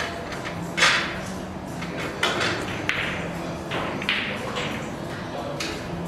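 Pool balls clacking against each other in a series of sharp knocks, the loudest about a second in, as they are gathered into the triangle rack for a re-rack. The knocks echo in a large hall.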